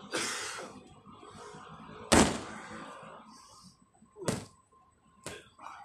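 Strikes from boxing gloves landing on Muay Thai pads: about five sharp smacks, the loudest about two seconds in and two quicker ones near the end.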